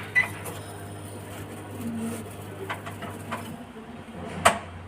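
IFB washing machine running with a steady low hum, a few light clicks over it and one sharp knock about four and a half seconds in.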